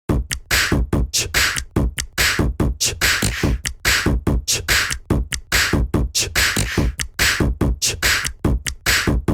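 Android ringtone: an electronic drum-machine beat of fast, sharp percussive hits over deep bass.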